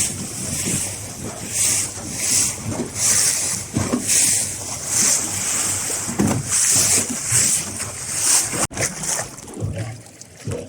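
Sea water splashing and hissing against a small boat in the wind, in repeated surges every half second or so over a low rumble. It drops abruptly and becomes quieter about nine seconds in.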